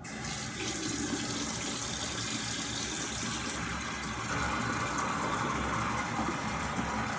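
Water running steadily from a bathroom tap into a sink, with a sharp click near the end.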